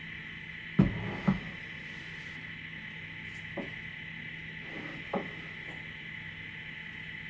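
A few knocks of things being handled during cookie-making, two louder ones close together about a second in and two lighter ones later, over a steady hum.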